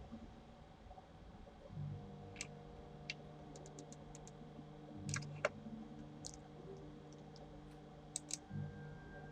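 Computer mouse clicking: a scattering of faint single clicks at irregular intervals, a few in quick succession, over a faint steady low hum.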